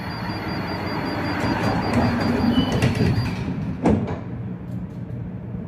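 Tatra T3R.PLF tram standing still, with a steady low electrical hum and road traffic swelling past. A short, sharp sound that drops quickly in pitch comes about four seconds in, and things are quieter after it.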